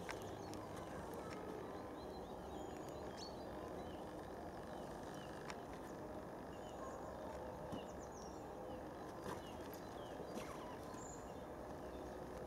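Faint outdoor background noise, a steady low rumble, with scattered faint bird chirps and a few soft crunches of footsteps on snow.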